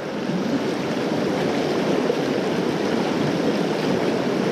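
Fast river water rushing over rapids, a steady even hiss.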